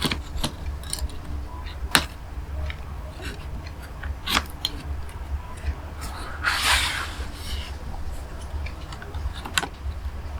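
Scattered sharp clicks and taps, with a brief rustling scrape midway, as small cables and connectors inside an open MacBook Pro are handled and pressed back into place. A steady low hum runs underneath.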